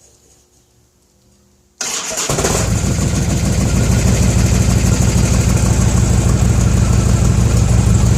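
Harley-Davidson Ultra Limited's Twin Cam 103 V-twin being started: the starter cranks briefly about two seconds in, the engine catches at once and settles into a steady idle through its exhaust with freshly replaced clamps.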